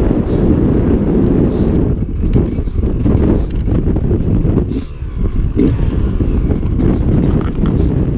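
Off-road dirt bike engine running as the bike rides over rough moorland, mixed with heavy wind buffeting on the camera's microphone. The sound is loud and dense, and it dips briefly about halfway through.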